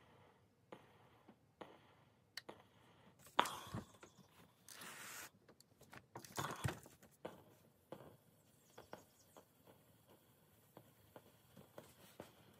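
Quiet handling sounds of a steam iron and a terry towel on starched denim: scattered knocks and rustles as the iron is lifted and set down and the towel is pulled off, with a sharp knock about three seconds in and a brief rush of noise a couple of seconds later.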